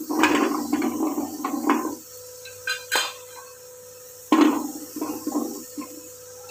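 Handfuls of cut green beans dropped and spread into the cups of an aluminium idli steamer plate, a rustling clatter in two bouts with a couple of sharp metal clicks between them.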